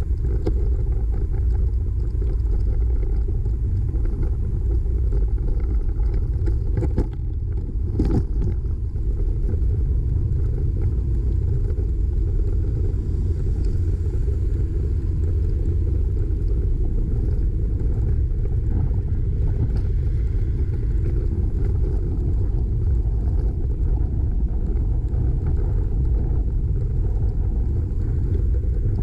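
Steady wind rumble on the microphone from riding a bicycle in a breeze, with one short knock about eight seconds in.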